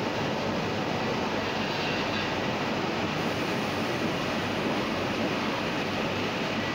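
Heidelberg GTO four-colour offset printing press running steadily, an even mechanical clatter and hum.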